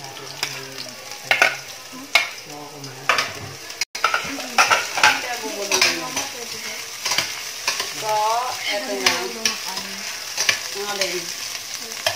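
Onion, garlic and ginger sautéing in hot oil in a stainless steel pot, sizzling steadily, with short clicks and scrapes of a spoon against the pot as it is stirred.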